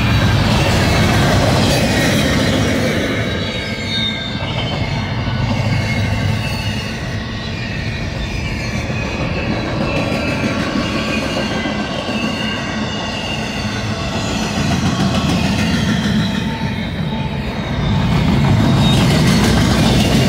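Double-stack container well cars of a BNSF freight train rolling past close by: a steady, loud rumble of steel wheels on rail, with thin wavering squeals of wheel flanges on the rails above it. The rumble swells again near the end.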